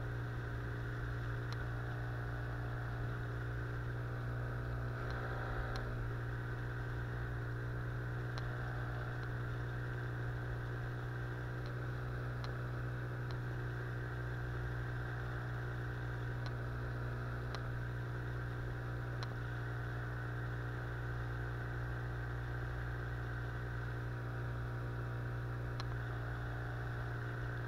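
Outboard motor running at a steady speed, pushing an inflatable boat upriver.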